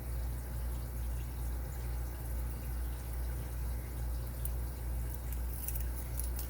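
Steady low background hum with a slow, even rise and fall in level, and a few faint small ticks near the end.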